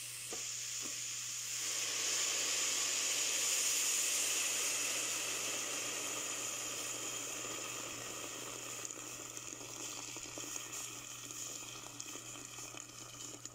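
Hot pot of sautéed vegetables and tomato paste sizzling and hissing as hot water hits it, swelling over the first few seconds and then slowly dying down, with a few light taps from a wooden spoon stirring in the second half.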